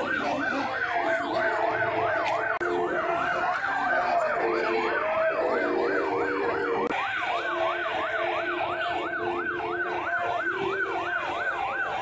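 Electronic siren in fast yelp mode, its pitch sweeping rapidly up and down about three times a second without a break.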